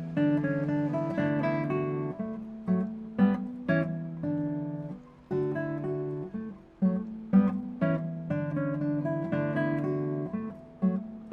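Acoustic guitar music: chords strummed and left to ring, a new chord about every second.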